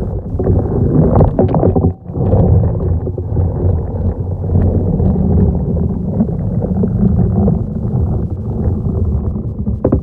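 Dull underwater rumble and water rushing, as heard by a submerged camera, while a manual pool vacuum head is pushed across the pool floor toward the wall, with a few faint knocks. The sound dips briefly about two seconds in.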